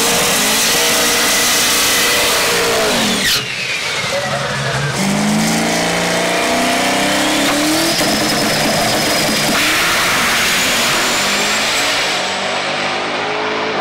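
C4 Corvette drag car launching and accelerating hard down the strip. Its engine is loud and at high revs, and the pitch climbs in steps as it shifts up through the gears.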